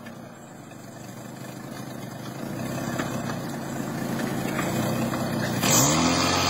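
1989 Jeep Cherokee's 4.0 L inline-six running under load through a mud rut in two-wheel drive, growing steadily louder. Near the end the revs rise sharply with a burst of hiss.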